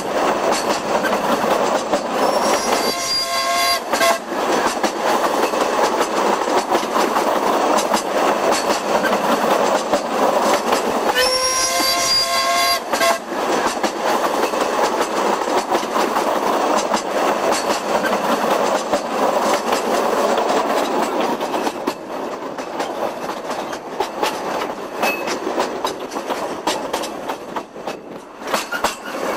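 Narrow-gauge train running, with a steady rattle of wheels and carriages. The train's whistle sounds twice: a blast of about a second and a half about three seconds in, and a longer one of about two seconds about eleven seconds in. The running sound eases somewhat near the end.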